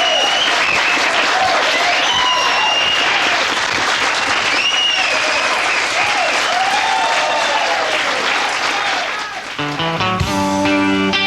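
Studio audience applauding, with whistles and cheers over the clapping. Near the end the applause gives way as a country band starts a song intro on guitars.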